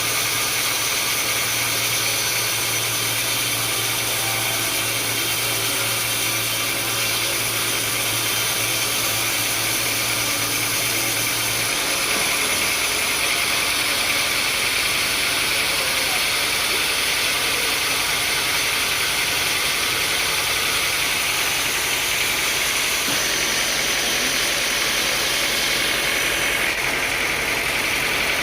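Sawmill machinery running steadily: a continuous mechanical drone with a low hum that changes pitch about twelve seconds in.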